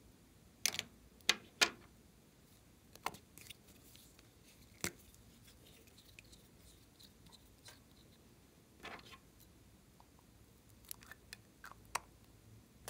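Small metal scissors snipping and small plastic toy-shaped containers clicking as they are handled: a scattering of short, sharp clicks and snips, three of the loudest close together about a second in.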